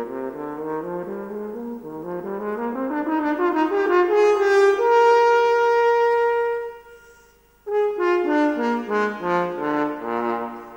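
French horn playing an unaccompanied solo passage: quick runs of notes climbing to a long held high note that fades away, then, after a short pause, another fast run of notes.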